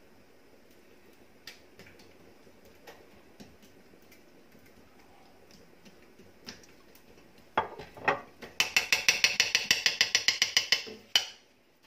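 Gas stove's spark igniter clicking rapidly and evenly, about nine clicks a second for two seconds, as the burner under the pot is lit, preceded by a couple of knocks. Faint light taps from the cook's utensils come before it.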